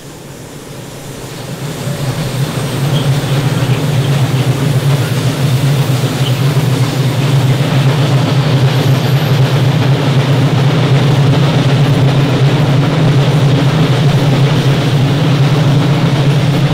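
Freight train of tank wagons rolling past close by behind a Siemens Vectron electric locomotive. It grows louder over the first few seconds as the train nears, then holds a steady, loud low rumble of wheels on rail.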